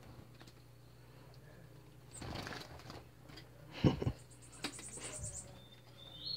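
Wire bird cage being handled, with rustling, scattered clicks and a sharp knock about four seconds in, the loudest sound. A small caged bird gives a quick, very high twittering trill about a second after the knock and a short high chirp near the end.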